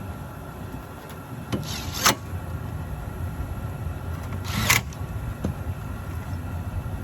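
Steady low mechanical rumble of a running gas package heating unit, with a couple of sharp knocks about a second and a half in and a short clattering hiss near five seconds, like metal panels or tools being handled.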